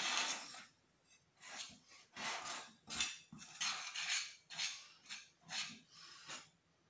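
A large spoon scraping and stirring against a glass bowl while mixing flour and water into bread dough, in short strokes about two a second.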